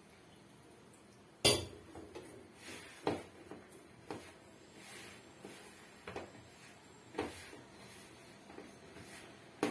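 Chapati dough being kneaded by hand in a plastic bowl: a sharp clack about a second and a half in, then dull knocks roughly once a second as the dough is worked.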